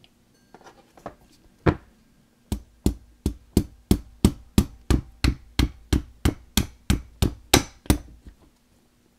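Soft-faced hammer tapping a 3/32 punch to drive out a 1911 pistol's mainspring housing retaining pin: one tap, then a steady run of about seventeen sharp taps, about three a second, which stops near the end.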